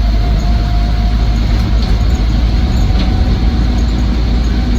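Cabin sound of a 1962 Land Rover Series IIa 109 on the move: its 2.25-litre four-cylinder petrol engine running steadily under a loud, even road and drivetrain drone, with a faint steady whine in the first second or so.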